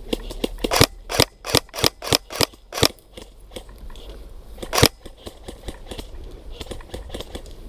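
Airsoft guns firing: a quick string of sharp shots over the first few seconds, then a single louder shot about five seconds in, with fainter clicks of distant shots in between.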